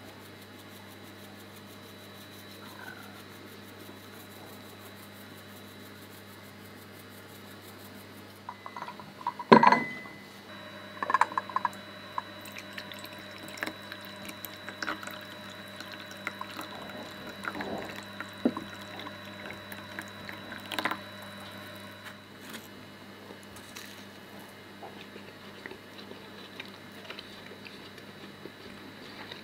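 Tea being poured into a porcelain cup, with a sharp clink about ten seconds in and smaller clicks of crockery, over a steady faint hum.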